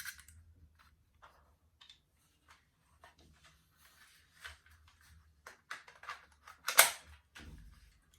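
Plastic spring-powered 6 mm airsoft rifle being handled, with scattered small clicks. About seven seconds in comes one loud, sharp snap of its spring mechanism.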